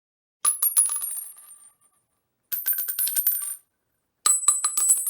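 Small metal pieces clattering and jingling with a bright ringing, in three separate bursts of quick clinks, each about a second long.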